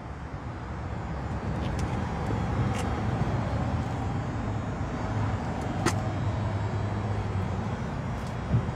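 Low, steady rumble of a running motor vehicle, with one sharp click about six seconds in.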